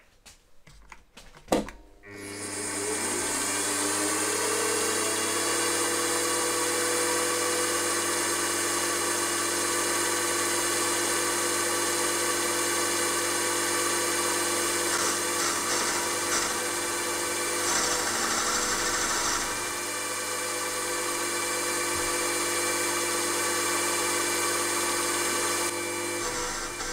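Milling machine spindle starting about two seconds in, its whine rising in pitch and settling to a steady run. It then runs steadily as a 12 mm slot drill plunges into a cast iron piston blank, with extra high-pitched cutting noise for a few seconds in the middle.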